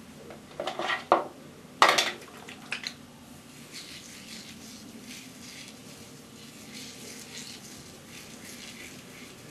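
Hands working a section of wet, mask-coated hair: a few brief clattering handling noises in the first three seconds, the loudest near two seconds in, then faint rustling of hair between the fingers.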